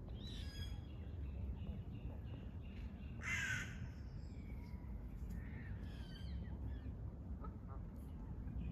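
Outdoor ambience of birds calling, with one loud, harsh call about three seconds in, over a steady low rumble.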